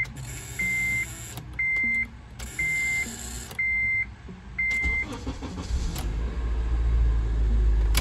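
Honda Element's dashboard warning chime beeping about once a second, five times, while the key is worked in the ignition switch, with bursts of a hissing buzz from the failing ignition switch. A low rumble swells in the last two or three seconds.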